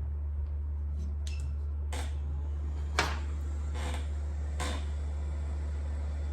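Several light clicks and taps of small tools working on a key fob's circuit board, over a steady low electrical hum.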